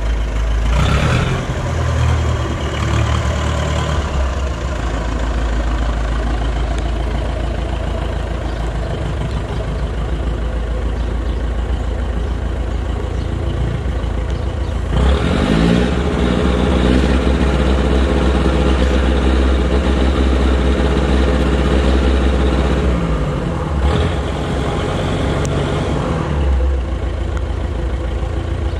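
Forklift engine running at idle, revving up about 15 seconds in, holding the higher speed for several seconds, then dropping back to idle.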